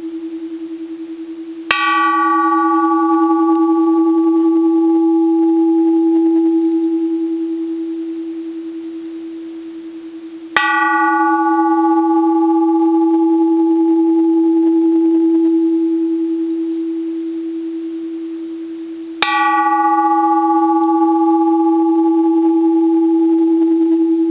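Bronze Japanese Buddhist temple bell struck lightly three times, about nine seconds apart. Each strike is a bright clang whose higher overtones die away within a few seconds, while a deep hum swells and rings on into the next strike.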